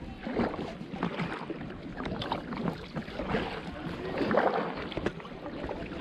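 Kayak paddle dipping and splashing in lake water in uneven strokes.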